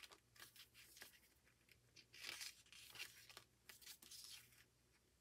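Faint paper rustling as the glossy pages of an album photo book are handled and turned, in a string of short, soft rustles with a longer one about two seconds in.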